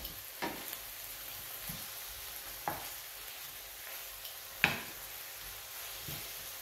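Food sizzling steadily in a frying pan while a utensil stirs it, with three sharp knocks of the utensil against the pan, the loudest about two-thirds of the way through.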